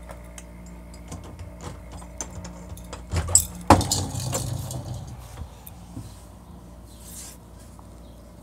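Handling noise from a handheld phone being moved about: small clicks and rattles throughout, and a loud knock about three and a half seconds in, over a steady low hum.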